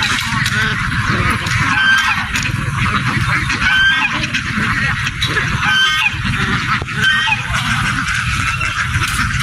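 A large flock of domestic ducks quacking together in a dense, continuous chorus of overlapping calls, over a steady low rumble.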